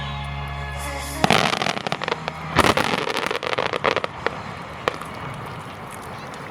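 A held music chord ends about a second in, and a dense volley of starmine firework bursts and crackling follows, thinning to a few last pops near the end.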